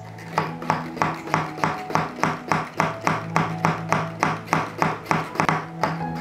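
Manual stainless-steel milk frother being pumped by hand to froth milk: the plunger strokes up and down at about three to four strokes a second, each stroke a short, sharp clack in the jug, starting about half a second in.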